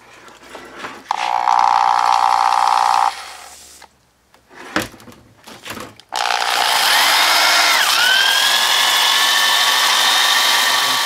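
Hand drill spinning a 2-inch ball cylinder hone in a steam engine cylinder bore lubricated with WD-40: a steady whine with scrubbing that starts about six seconds in, its pitch rising, dipping briefly and settling. Before it, a two-second burst of noise and a click.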